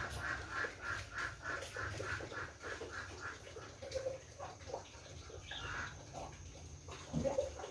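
A bird calling a run of short repeated notes, about three a second, for about three seconds, then a few scattered calls over a low rumble.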